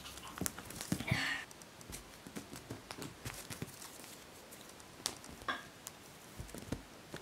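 A kitten scuffling on a blanket-covered sofa as she plays with a piece of foam: scattered soft taps and thumps of paws, with fabric rustles and a louder rustle about a second in.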